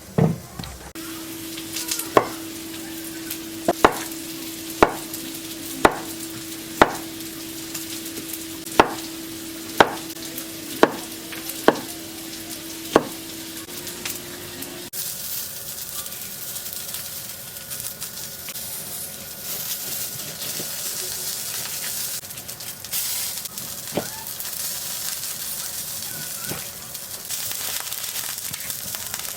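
Food frying in oil in a frying pan, sizzling, with stirring. In the first half, sharp taps come about once a second over a steady hum. About halfway through, the sizzle grows into a louder, even hiss.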